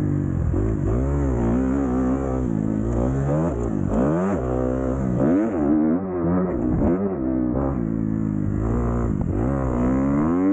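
Kawasaki KX250F four-stroke single-cylinder dirt bike engine being ridden, revving up and dropping back several times as the throttle is opened and closed.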